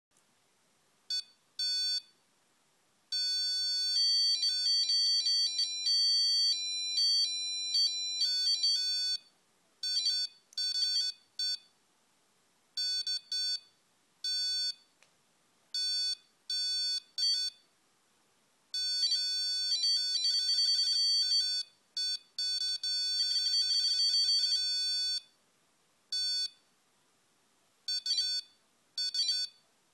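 Arduino-driven piezo buzzer sounding a high-pitched electronic tone, switching on and off in short beeps and longer held stretches as light reaches the circuit's sensor.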